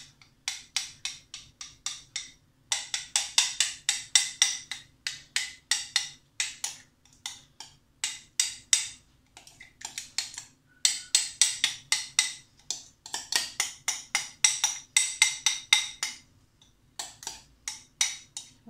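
Spoon scraping and knocking inside a jug of thick béchamel as the sauce is spooned out: quick runs of sharp clicks, about five a second, with short pauses between the runs.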